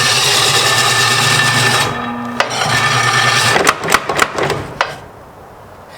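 Antique electric power hammer running, its motor humming under fast continuous pounding, which cuts out about two seconds in, picks up again briefly, then breaks into a few separate knocks and dies away as the 20 amp breaker trips.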